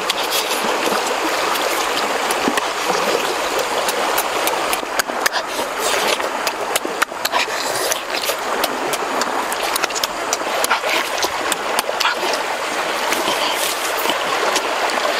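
Steady rush of a river flowing over rocks, with many irregular close clicks and smacks of roasted bird meat being bitten, torn and chewed.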